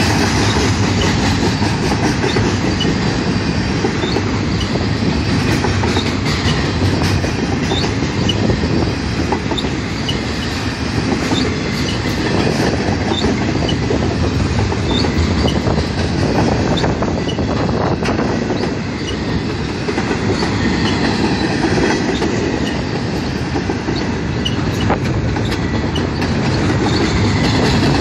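Container train cars rolling past steadily on steel wheels, clicking over the rail joints, with brief high squeaks from the wheels.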